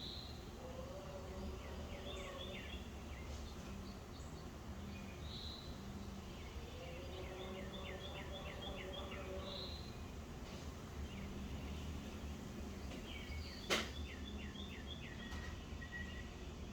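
Songbirds chirping in short, rapid trilled series that come back every several seconds, over a steady low background rumble. A single sharp click about fourteen seconds in.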